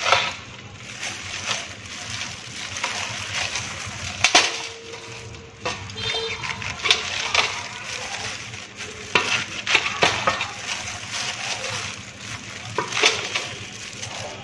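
A knife chopping fresh Asian pennywort (rau má) leaves inside a stainless steel bowl: irregular clicks and scrapes as the blade hits the metal through the greens.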